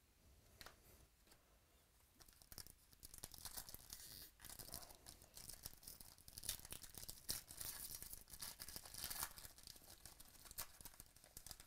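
A foil trading-card pack wrapper being torn open and crinkled by hand, crackling on and off from about two seconds in.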